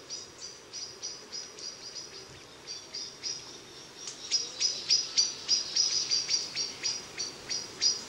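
Rapid, evenly repeated high-pitched chirping from wildlife in dry scrub, about three chirps a second, growing louder about halfway through.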